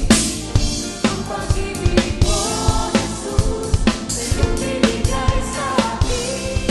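Drum kit played to a backing song: steady kick, snare and cymbal hits about twice a second, under sustained and bending notes from other instruments.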